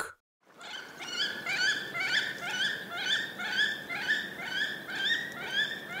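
Wood duck calling: a steady series of short, rising squeaky calls, about two a second, starting about half a second in.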